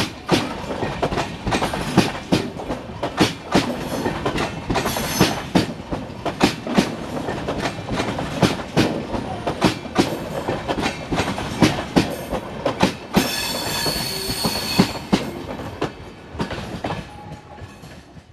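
Passenger coaches of an express train rolling past, their wheels clattering over the rail joints in a quick, uneven run of clicks. About two-thirds of the way through, a high-pitched squeal from the wheels lasts about two seconds, and the clatter then fades as the last coach moves away.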